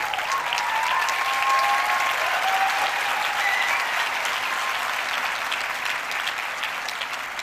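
A large audience applauding, swelling in the first second and tapering off near the end.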